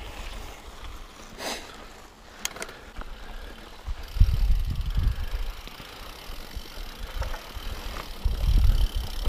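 Mountain bike riding over a rocky dirt trail: tyre and trail noise with a couple of sharp clicks and rattles from the bike, and bursts of low rumble about four seconds in and again near the end.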